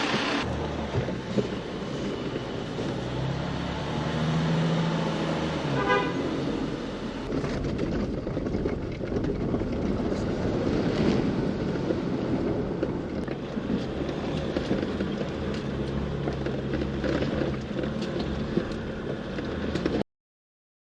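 Jeep engine running at low revs, with a short run of rapid pulsed tones about six seconds in. The sound cuts off abruptly near the end.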